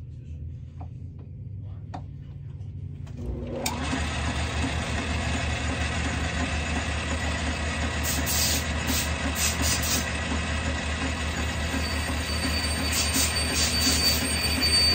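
Manual Logan metal lathe switched on about three and a half seconds in, its motor spinning up with a rising whine and then running steadily with an even low pulsing. Short scraping bursts follow, and a thin high squeal comes in near the end as the cutting tool is worked against the spinning brass tenon.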